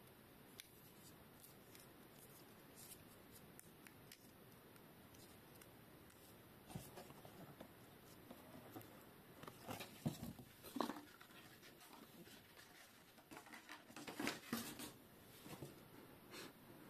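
Faint handling noise of a GoPro HERO12 Black action camera being turned over in the hands: scattered soft clicks, taps and rustles, the loudest a couple of clicks about ten seconds in and a cluster around fourteen seconds.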